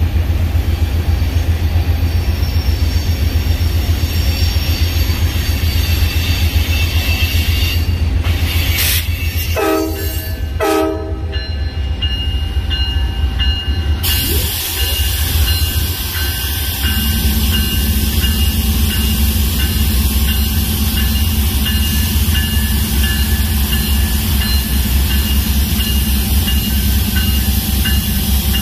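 Diesel locomotive engines rumbling, with two short horn blasts about ten seconds in: the two-short signal to release brakes and proceed. A steady engine drone joins about seventeen seconds in.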